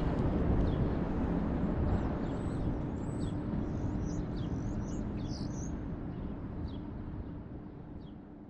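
Outdoor city ambience: a steady low rumble with a constant hum, and small birds chirping on and off, most busily in the middle. The whole sound fades gradually toward the end.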